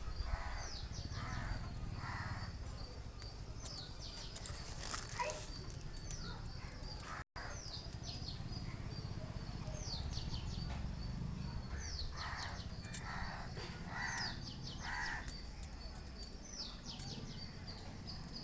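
Birds chirping in many short, quick, falling chirps. Two runs of three or four lower, rougher calls come in, one about a second in and another from about twelve seconds in, over a low rumble.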